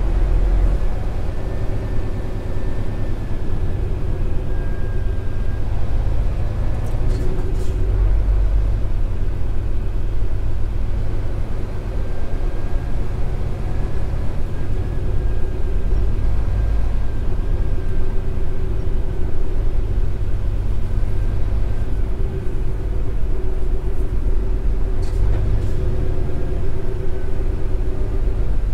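Scania R410 truck driving, its 13-litre six-cylinder diesel running with a steady low drone and road rumble and a steady whine above it. A few short clicks come about seven seconds in and again near the end.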